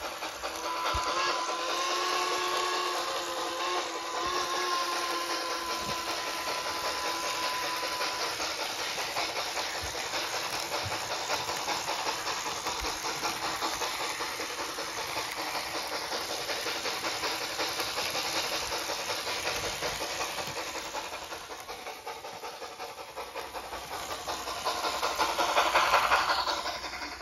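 Onboard sound system of a Bachmann HO-scale Pennsylvania Railroad K4 steam locomotive playing steam chuffing and hiss as the model runs. A long steam whistle sounds for about the first eight seconds. The sound is loudest near the end, as the locomotive passes close by.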